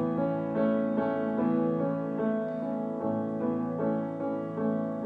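Instrumental keyboard music: piano-toned chords and notes played at a slow pace, held and overlapping, between sung lines of a worship song.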